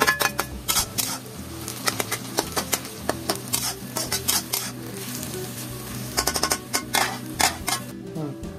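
A metal spatula stirring and scraping tomatoes and onions around a kadai over the heat, with the oil sizzling underneath. The scrapes and knocks on the pan come in short bursts with pauses between them.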